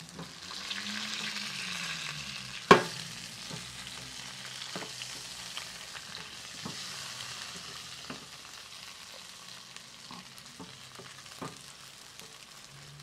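Boiled potatoes sizzling in hot oil in a clay cazuela as they are mashed with a drinking glass, the glass knocking on the potatoes and pot. There is one sharp knock about three seconds in, then lighter taps every second or two.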